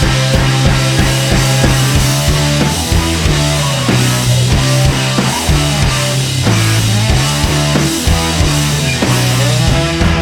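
Rock music with drums, bass and guitar, a steady driving beat.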